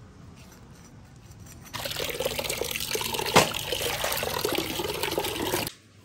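A stream of water splashing into an aluminium pot as hands rinse raw chicken pieces in it, starting about two seconds in and cutting off sharply near the end. One sharp knock sounds partway through.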